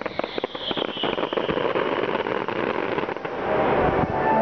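Fireworks going off: a quick series of bangs and cracks, with a high whistle falling in pitch in the first second, then dense crackling.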